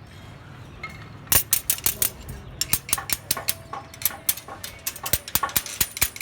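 Rapid, irregular metallic clinks and knocks, several a second, starting about a second in, some ringing briefly: steel reinforcing bar being worked for a beam's rebar cage.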